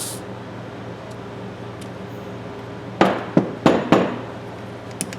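Steel needle-nose pliers being worked open and shut, their joint loosened with carb cleaner and WD-40: a few sharp metal knocks about three seconds in, then quick clicking, about five a second, near the end. A steady low hum lies underneath.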